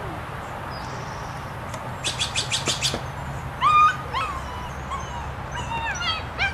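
German Shepherd puppy giving a string of short, high yips and whines that fall in pitch, starting about three and a half seconds in, the first one the loudest. Just before, a quick run of about seven sharp high clicks.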